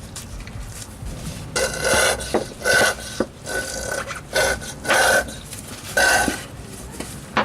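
Plastic bottle of 80W-90 limited-slip gear oil glugging and burping as it is squeezed into the differential fill hole. There are about half a dozen belch-like gurgles, roughly a second apart, starting about a second and a half in, as air is drawn back into the emptying bottle.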